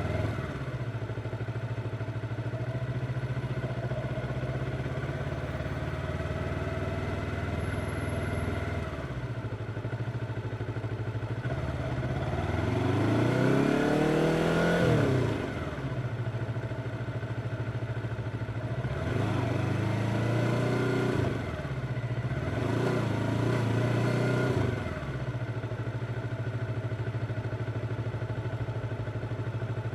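Yamaha R25's 250 cc parallel-twin four-stroke engine running steadily, opened up three times with the pitch climbing and then dropping back, the longest rise about twelve seconds in.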